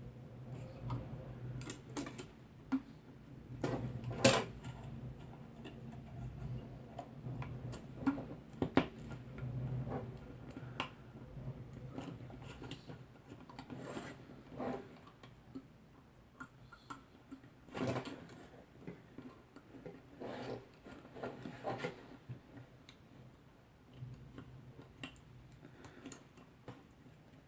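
Irregular small clicks, taps and handling noises from hands working Cat6 network cable and wiring tools, with a sharper click about four seconds in, over a low steady hum.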